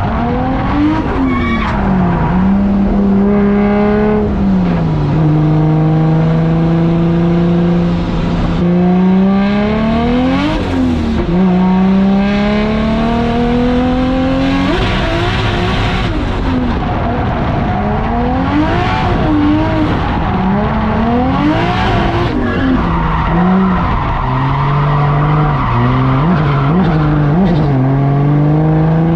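A drift car's engine revving hard. Its note climbs and drops back many times, over tyres squealing as the car slides.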